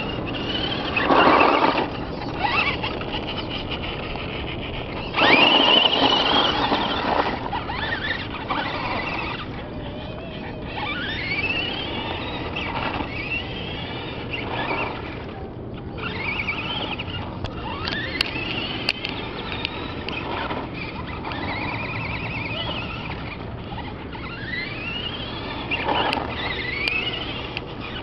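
Traxxas Stampede RC truck's electric motor whining, its pitch rising again and again as the truck accelerates. Louder rushing noise comes about a second in and again around five to seven seconds in.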